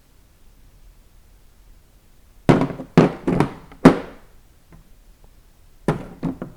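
Metal hand tools from a mechanics tool set knocking and clattering as they are handled and set down: four sharp knocks in quick succession around the middle, then three more near the end.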